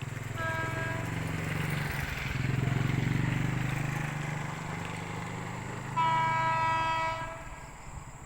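KRL Commuter Line electric train running past with a low rumble that swells midway. The driver sounds the horn twice, a short toot just after the start and a longer, louder blast about six seconds in, as a greeting to trackside watchers.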